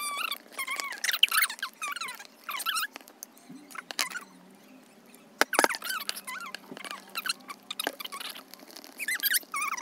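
High-pitched, chipmunk-like chatter of voices, sped up as in a time-lapse, with a few sharp clicks in the middle.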